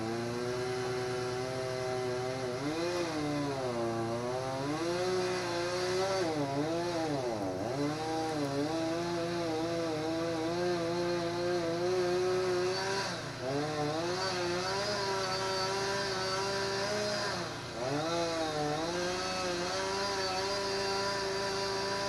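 A small engine running steadily, its pitch dipping and recovering several times as if briefly loaded.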